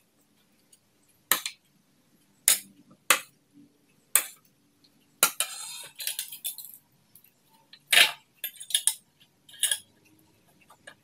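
Metal spoon clinking against ceramic bowls and plates during a meal: sharp single clinks a second or so apart, with a longer scraping clatter about five to seven seconds in.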